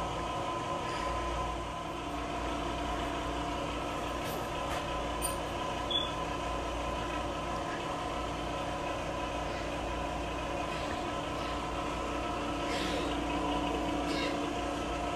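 Steady mechanical hum with several held tones, with one short click about six seconds in and faint rustling near the end.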